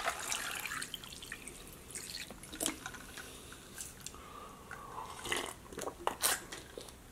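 Water poured from a plastic bottle into a ceramic mug, the stream tapering off about a second in. Then quiet sips from the mug with a few light clicks and knocks.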